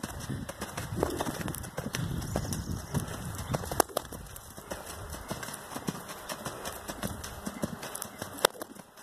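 A horse cantering on sand footing, its hoofbeats coming as a run of dull thuds, heaviest in the first half, with a couple of sharper clicks.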